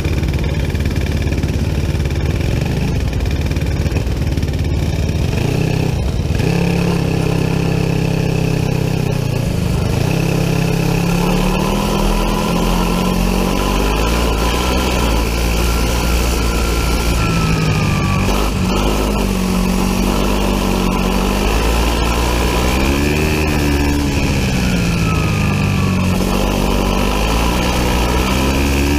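Biland SA250 four-stroke kart engine, heard onboard: running steadily at first, then from about ten seconds in revving up and down repeatedly, its pitch rising and falling as the kart accelerates and slows around the track.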